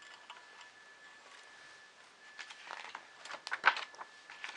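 Small parts being handled during hand assembly: a run of irregular clicks and light rattles starting about halfway through, loudest near the end, over a faint steady high-pitched whine.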